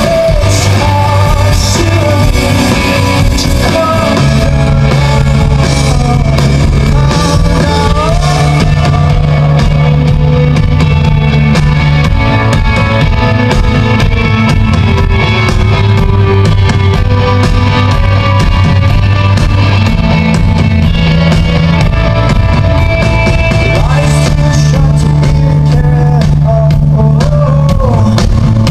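Rock band playing live: a male lead vocal sung over electric guitars, held bass notes and a drum kit, steady and loud.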